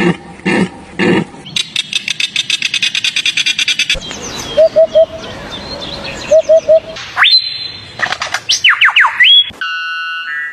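A run of different animal and bird calls in quick succession: a few low pulsing calls, then a fast trill of about eight notes a second, short repeated chirps, and sharp whistles that sweep up and down, ending on a held multi-toned call.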